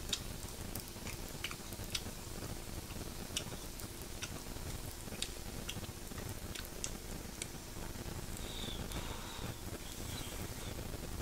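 Pork belly sizzling on an electric grill pan, with scattered sharp pops and crackles of spitting fat.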